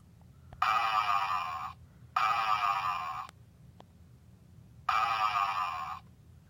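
Super Poo Chi robot dog toy snoring in its sleep mode: three electronic snores of about a second each, the first two close together and the third after a pause, each starting loud and fading away.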